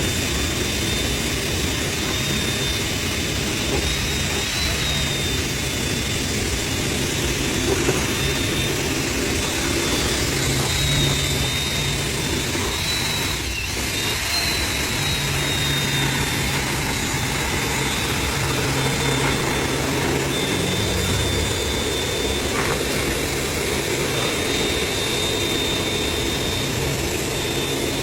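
Homemade grinding mill driven by an electric drill, running steadily: a high, slightly wavering motor whine over a coarse low grinding noise.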